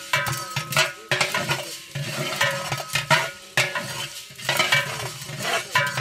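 A long metal spatula scraping and stirring spice seeds around the bottom of a large aluminium cooking pot, with a light sizzle as the seeds fry. The scrapes come again and again across the metal.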